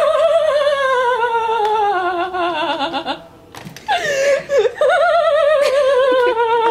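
A high voice singing two long, wavering notes, each sliding slowly downward in pitch, with a short break about three seconds in.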